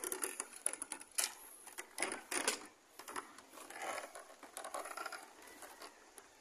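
Footsteps on the wooden planks of a suspension bridge: the boards knock and clatter irregularly underfoot, busiest in the first half.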